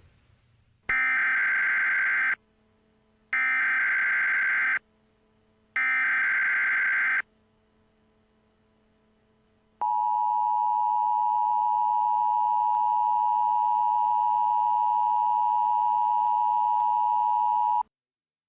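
Emergency Alert System SAME header: three short bursts of digital data noise, each about a second and a half, followed by the steady EAS attention tone held for about eight seconds, which cuts off abruptly. The sequence signals the start of an emergency alert broadcast.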